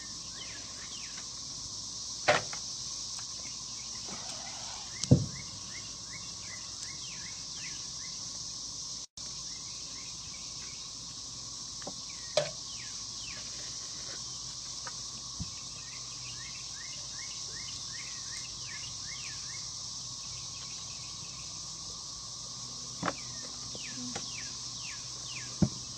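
Summer outdoor ambience: a steady high insect drone with many short, quick chirps running through it. A few sharp clicks and knocks, the loudest sounds, come from crawfish being cracked and peeled at the table.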